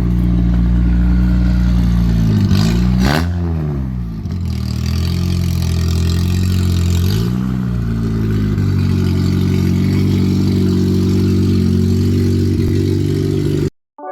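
Honda car engine idling steadily, revved up and back down about three seconds in and blipped again more lightly about seven seconds in; the sound cuts off suddenly near the end.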